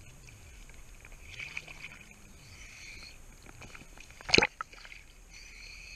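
River water lapping and sloshing against a camera held at the surface, with one loud splash a little past four seconds in as a wave slaps over the lens.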